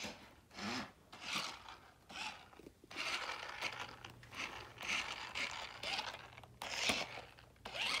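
Sharper Image Thunder Tumbler toy remote-control stunt car driven over carpet in short spurts: its electric motors whirring and its wheels scuffing and scraping the carpet in repeated surges.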